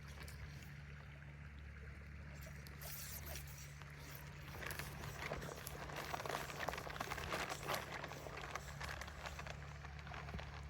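Steady rush of a mountain stream. From about four seconds in to near the end, a run of crackling rustles and crunches sits over it.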